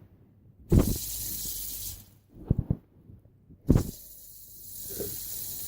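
Steady high hiss of the static from an LED fidget spinner's built-in Bluetooth speaker, switched into Bluetooth mode with nothing connected to play. A sharp knock starts it about a second in; it cuts out near the middle and comes back after another knock.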